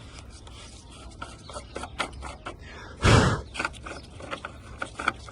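Clicks and scraping of the coolant reservoir cap being worked open by hand, with one louder short thud about three seconds in.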